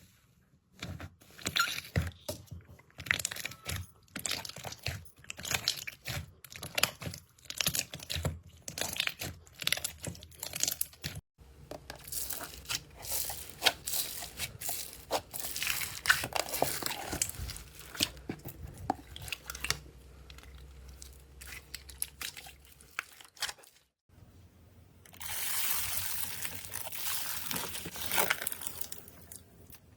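Slime being squeezed and poked by hand: a dense run of sticky pops, clicks and crackles. The texture changes abruptly twice as a different slime takes over.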